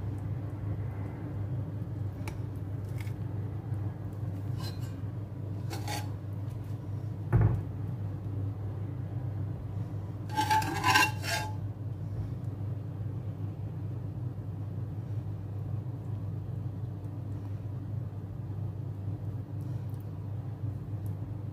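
Utensils and food knocking against a ceramic serving plate as a dish is plated: a dull thump about seven seconds in and a short clatter of ceramic clinks with a brief ring around ten to eleven seconds in, with a few light clicks. A steady low hum runs underneath.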